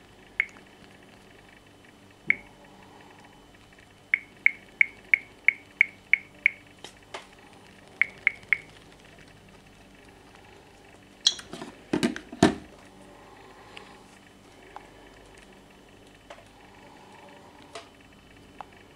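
Short, sharp clicks of taps on a smartphone, including a quick even run of about seven taps, two to three a second. A few louder knocks and rattles come about halfway through as the phone is handled.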